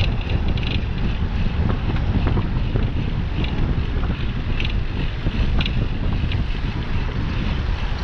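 Steady low wind buffeting on the microphone of a camera riding on a moving bicycle.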